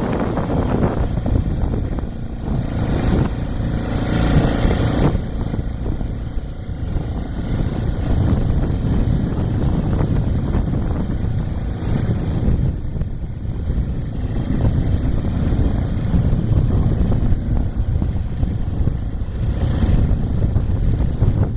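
Wind buffeting the microphone, a loud, rough, uneven rumble. Brief rushing swells, about three seconds in and again near the end, likely gusts or waves.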